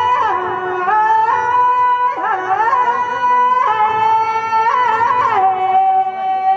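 Rajasthani Teja folk music: a melody of long, steady held notes that step up and down in pitch every second or so, with a reedy, wind-instrument-like tone.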